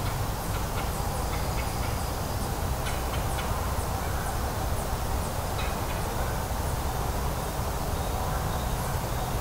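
Steady low rumble of distant traffic from a populated area, with faint short high chirps scattered over it.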